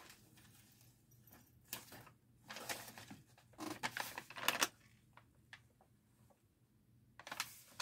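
Packaging rustling and crinkling in several short bursts as a parcel is handled for unboxing, with a few light clicks in between.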